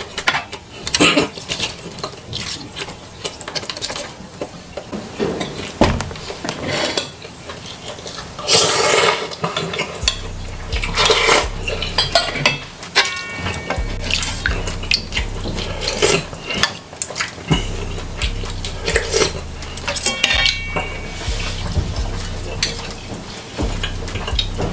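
Close-miked eating: a spoon and dishes clinking and scraping in a pan of instant noodle soup, with irregular chewing and mouth sounds while noodles and grilled chicken are eaten. A low hum comes and goes in the second half.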